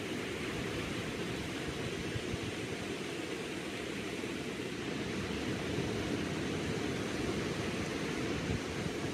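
Small ocean waves breaking and washing onto a sandy beach, a steady rushing surf with no single crash standing out.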